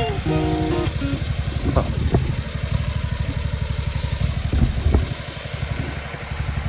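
Small lawn-equipment engine idling with an even pulsing beat, with a few light knocks. Background music fades out in the first second.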